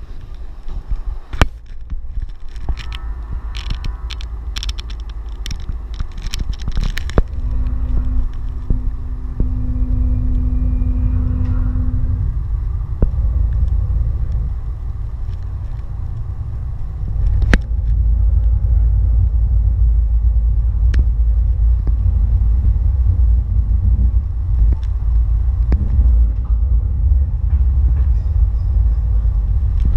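Light-rail trolley car running along its track, heard from inside the car: a steady low rumble that grows louder a little past halfway. There is a run of sharp clicks and knocks near the start, and a steady hum lasts for about five seconds.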